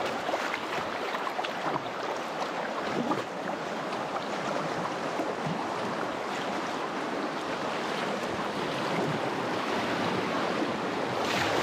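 River water rushing over a shallow riffle, a steady wash that grows a little louder near the end.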